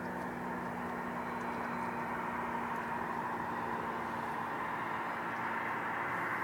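Steady rushing engine noise from a vehicle, slowly growing louder toward the end.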